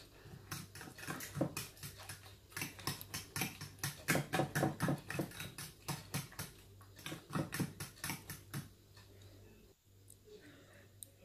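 Raw eggs mixed with chopped vegetables being beaten with a spoon in a glass bowl: quick, even wet slaps and clinks, about five a second, which stop about three-quarters of the way through.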